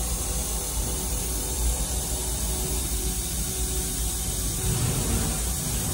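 Steady hiss over a low hum, with a faint steady tone, from machinery running while the plasma torch is not cutting.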